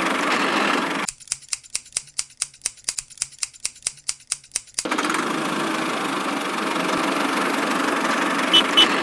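A small motor runs steadily. About a second in it gives way abruptly to regular sharp clicking, roughly five clicks a second, for about three and a half seconds, and then the steady motor sound returns.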